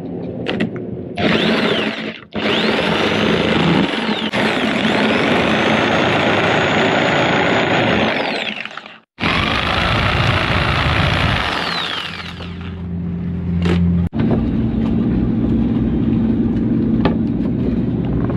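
Corded electric jigsaw cutting a round hole through a plywood panel. It runs in long loud stretches, stopping and starting again a couple of times.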